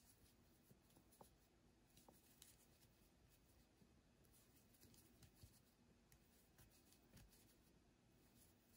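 Near silence with faint rustling and light ticks of a crochet hook and yarn as single crochet stitches are worked.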